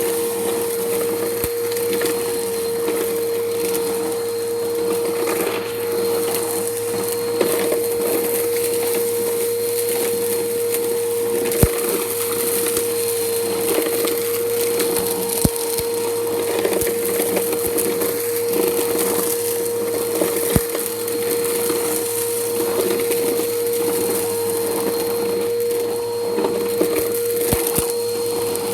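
Bissell Powerforce Helix upright vacuum running on concrete: a steady motor whine over continuous crackling and crunching as grit and debris are sucked up, with a few sharp ticks from harder bits.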